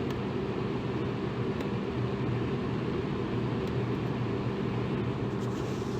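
Electric fan running steadily: an even whooshing hum, deepest and strongest in the low range, with a faint steady motor tone.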